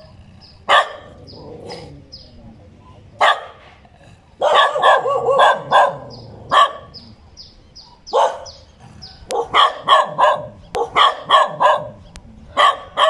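A dog barking in sharp, loud barks. Some come singly and some in quick runs of several, with pauses of a second or two between them.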